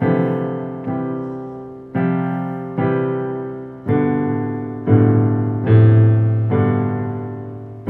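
Piano chords struck one after another, about one a second, each left to ring and fade, with heavy bass notes under them. This is the busy left-hand playing that makes worship piano sound muddy.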